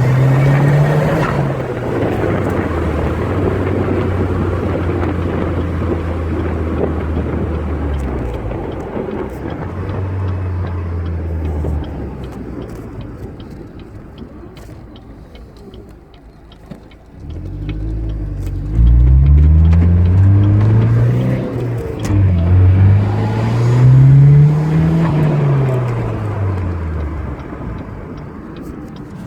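Car engine with a BorgWarner EFR turbocharger running steadily, then easing off, then revved up and back down twice in the second half, carrying the turbo's whine.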